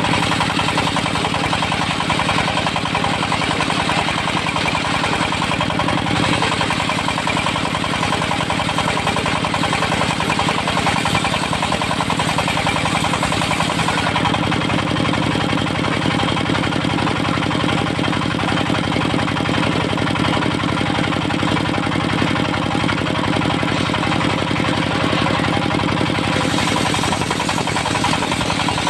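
Diesel-powered portable circular sawmill running steadily, the engine giving a fast, even knocking beat as the blade rips teak into beams. The higher part of the sound changes about halfway through.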